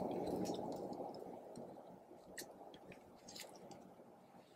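Clear slime being squished and folded by hand through loose glitter: a low rough rustle that fades over the first couple of seconds, then scattered small sticky clicks and pops.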